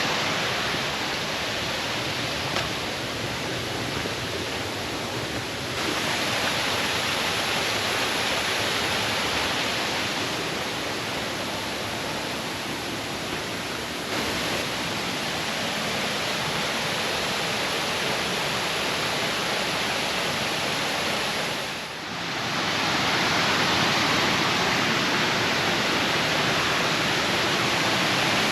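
Waterfall: a steady rush of falling water, its loudness stepping up and down abruptly a few times, with a short dip about three quarters of the way through.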